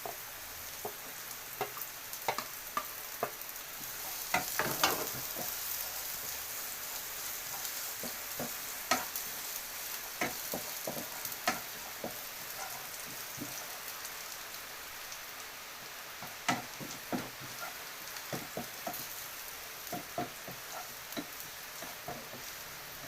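Food sizzling in a hot pan while being stirred: a steady hiss with irregular clicks and scrapes from the stirring utensil, busiest about four to five seconds in and again around nine to twelve seconds.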